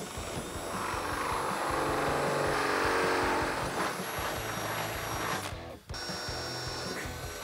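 Cordless drill with a gold twist bit boring a bolt hole through the rack's mounting foot into the truck's bed rail, the motor whining steadily under load. It stops briefly just before six seconds in, then runs on.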